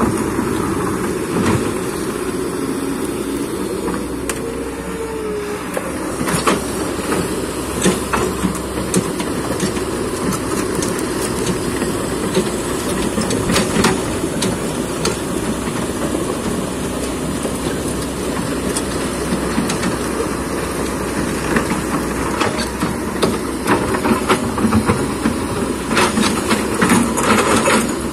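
Kobelco hydraulic excavator's diesel engine running steadily under working load, with scattered sharp knocks and clanks, bunched more thickly near the end.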